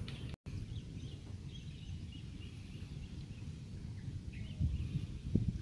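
Outdoor ambience of low rumbling background noise with faint, scattered bird chirps. The sound cuts out completely for a moment just under half a second in.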